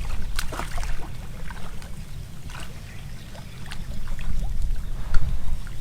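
Water splashing and dripping in irregular small bursts around a cast net with a big fish caught in it, over a steady low rumble.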